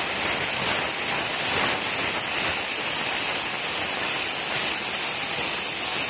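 Flip-type automatic glass bottle washing machine, its washing jets spraying with a steady hiss.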